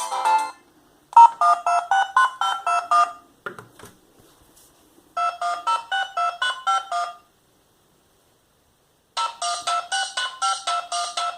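A BenQ A500 clamshell phone's built-in ringtone playing through its speaker: short phrases of quick, repeated electronic beeping notes, broken by pauses of about two seconds. A brief faint knock comes between the first two phrases.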